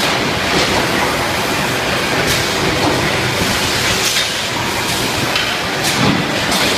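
Steady din of drop forging shop machinery, with a few short, sharp hits or hisses scattered through it.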